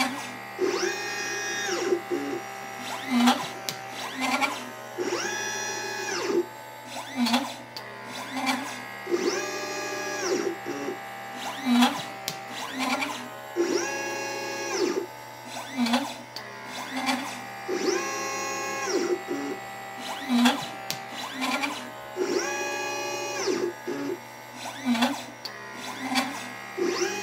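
LitePlacer pick-and-place machine's stepper motors whining as the head travels between the parts tape and the board, each move rising in pitch, holding, then falling, with clicks in between and a steady low hum beneath. The cycle repeats about every four seconds as it picks and places capacitors and resistors.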